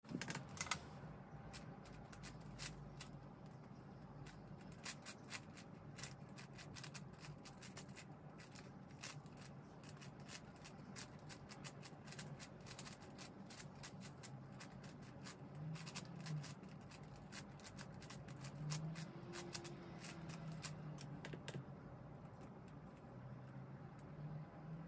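Plastic 5x5 speed cube being turned quickly by hand: rapid, irregular clicking and clacking of the layers, thinning out over the last few seconds, with a louder clatter at the very start.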